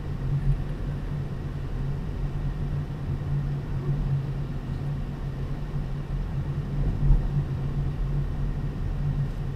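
Car driving slowly, heard from inside the cabin: a steady low engine and road hum, with a brief low thump about seven seconds in.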